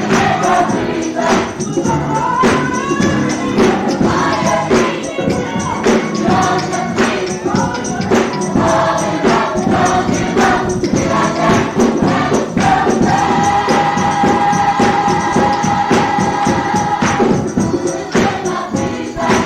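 Gospel choir singing with tambourine over a steady beat. About two-thirds of the way through the voices hold one long note for a few seconds before moving on.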